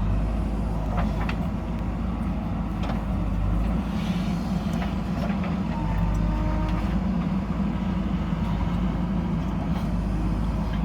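JCB backhoe loader's diesel engine running steadily, with a few short knocks in the first few seconds.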